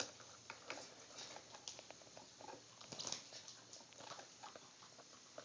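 Faint, irregular scratching and pattering of young green-cheeked conures moving about, their claws and beaks tapping on the surface beneath them.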